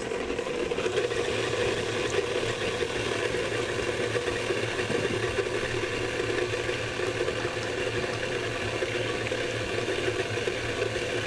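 Hobart-built KitchenAid stand mixer running steadily, its beater churning cookie dough of shortening, sugars and eggs in the steel bowl.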